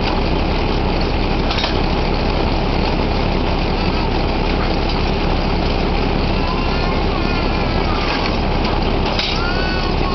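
Drilling rig machinery running steadily during pipe tripping, a loud continuous engine noise. There is a clank about a second and a half in and another about nine seconds in, and faint wavering high tones from about six seconds in.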